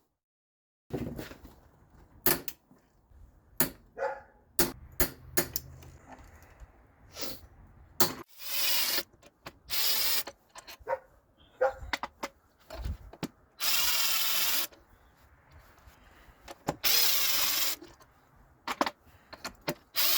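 A power driver spinning in short bursts of about a second, four or five times, amid sharp metallic clicks and knocks of tools and engine parts being handled.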